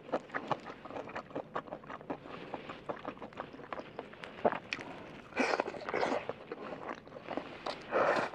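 Close-miked chewing and crunching of crispy breaded fried chicken: a steady run of small crunches and clicks, with louder crackling about five and a half seconds in and again near the end as a fresh bite is taken.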